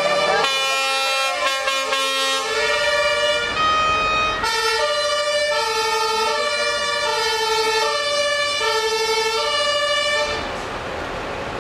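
Fire engine's two-tone siren, switching between a low and a high note about every three-quarters of a second. It stops about ten seconds in.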